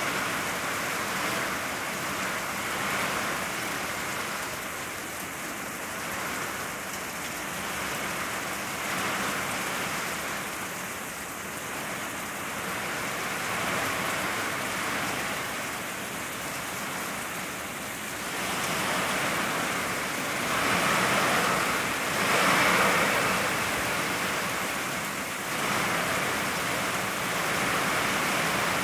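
Heavy rain falling steadily, swelling louder for a few seconds about two-thirds of the way through.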